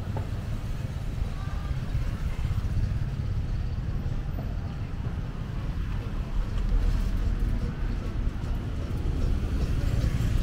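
Street ambience: a steady low rumble of road traffic, growing a little louder about six seconds in, with faint voices of people nearby.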